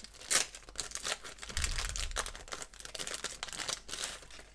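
Wrapper of a 1990/91 Pro Set football trading-card pack being torn open and peeled back by hand: a run of sharp crinkles and crackles, with one louder crackle just after the start.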